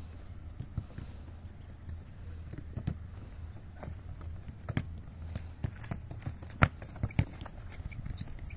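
Footballs being kicked and struck during a passing drill: irregular sharp thuds, the loudest about two-thirds of the way through, over a low steady rumble.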